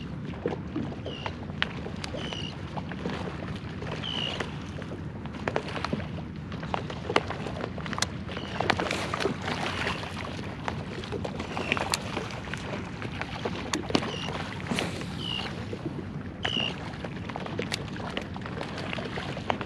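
Water lapping and splashing around a kayak, with bluefish breaking the surface and scattered sharp splashes, busiest about halfway through. Short high chirps repeat every second or so.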